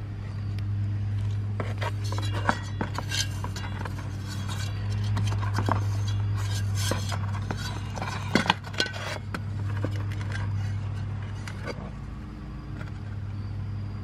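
Light metal clinks, knocks and scrapes as a rusty gas water heater burner assembly is handled and turned over, over a steady low hum.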